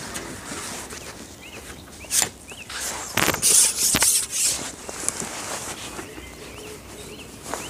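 A small bird calling over and over, a short chirp about once a second, over outdoor background. Bursts of rustling and light knocks break in several times, the loudest about three seconds in.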